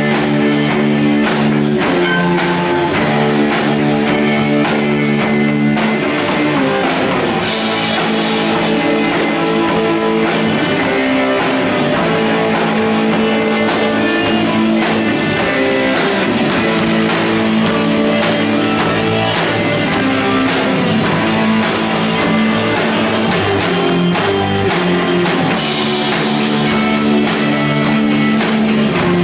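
A heavy psych rock band playing live and loud: electric guitars and bass over a drum kit. A bright cymbal wash swells up about a quarter of the way in and again near the end.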